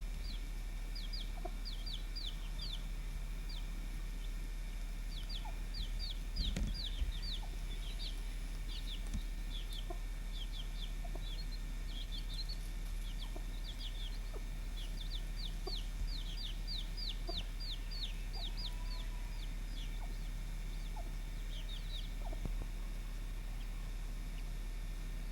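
Poultry chicks cheeping: quick runs of short, high, falling peeps, over a steady low hum. A few knocks sound about six to seven seconds in.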